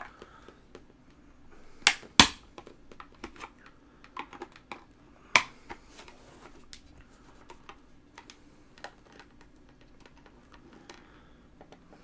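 External hard drive enclosure being pried open with a flathead screwdriver: irregular clicks and ticks of the casing's seams and the blade working at them, with two loud cracks close together about two seconds in and another about five and a half seconds in.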